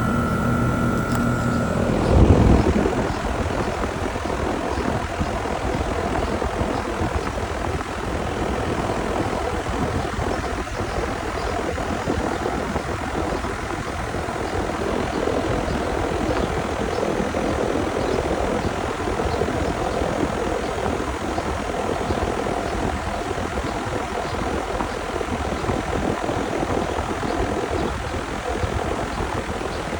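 American Standard air conditioner's outdoor condensing unit running, its newly replaced condenser fan blowing a steady rush of air. A short loud knock about two seconds in cuts off a steady hum with a held tone.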